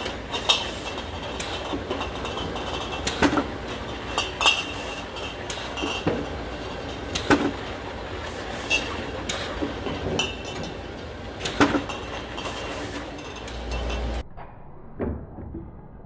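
Automatic round-product labeling machine running: a steady chain-conveyor and drive noise, with sharp glass clinks and knocks every second or so as handled glass jugs bump the guides and orienting rollers. Near the end the sound suddenly drops quieter, with one more knock.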